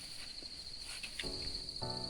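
Insects in the bush give a steady, high, pulsing trill throughout. Background music with sustained held tones comes in a little over a second in and swells near the end.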